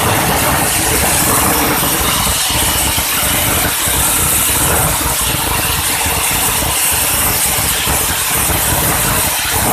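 Steam boiler plant running on trial: a steady mechanical rumble with a strong hiss over it.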